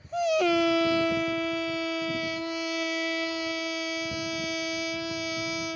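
A man imitating a locomotive horn with his voice: one long, steady horn-like note that starts with a brief drop in pitch and is held for about six seconds.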